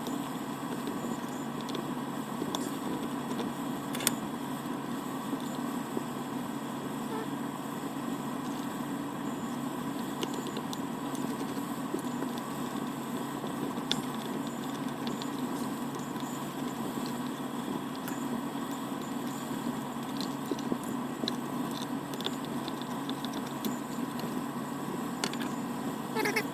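Steady mechanical hum and whir at an even level, with a few faint clicks.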